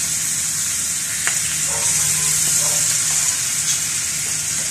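Pork sisig frying in melted butter on a hot cast-iron sizzling plate: a steady sizzle with a few small pops.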